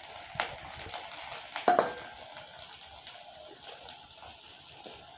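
Chopped onions sizzling in hot oil in a steel kadai on a gas stove, a steady hiss. A few sharp clicks sound over it, and the loudest, about one and a half seconds in, is a clink with a brief ring.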